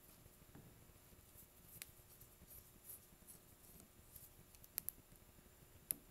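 Near silence with a few faint clicks of a screwdriver and small screw being worked out of a string trimmer's carburetor, two of them in quick succession near the end.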